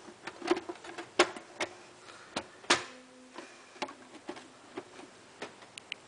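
Dell Optiplex GX520 small-form-factor desktop's case lid being lowered onto the chassis and pressed shut: a string of irregular sharp clicks and knocks, the loudest a little under three seconds in.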